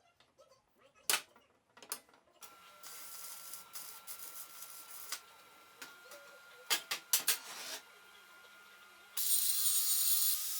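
Workshop sounds: a few sharp clicks of handled parts, then a small power tool running with a steady whine and hiss, with more clicks around the middle. It gets clearly louder and brighter about nine seconds in.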